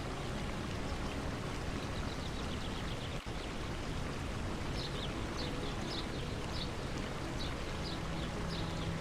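Water running steadily in a forest stream, with a small bird calling in quick, short falling chirps from about two seconds in, more often and clearer from about five seconds.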